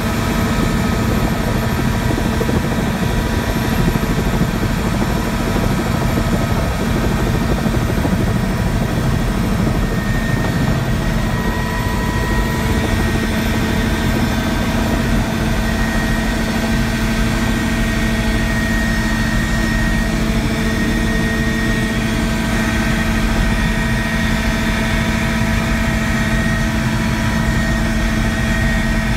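Helicopter engine and rotors running steadily, heard from inside the cabin as it lifts off and climbs, with a steady whine over a low rumble.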